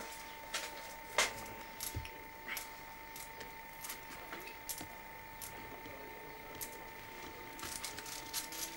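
Irregular light clicks and taps of a hand leather-stamping tool being pressed and worked into a piece of leather on a wooden table, over a faint steady whine.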